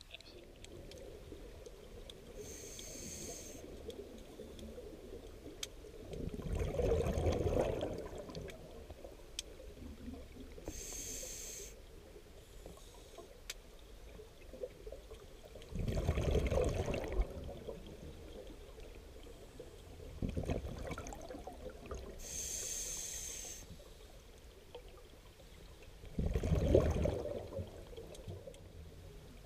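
Scuba diver breathing through a regulator underwater, slow and even: three short high hisses of inhalation and four louder bursts of exhaled bubbles, a full breath about every ten seconds.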